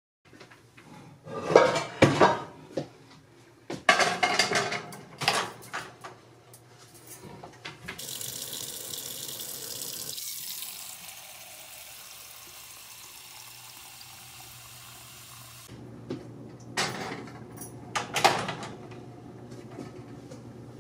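Kitchen tap running into a sink for several seconds, with dishes and pans clattering before and after.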